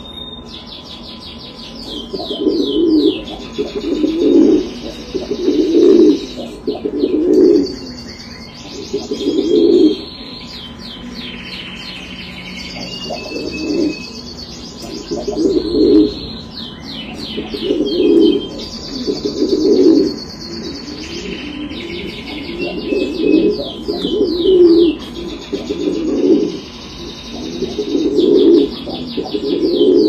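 Buchón (pouter) pigeons cooing over and over, a low rolling coo every second or two, with high-pitched bird chirping in the background.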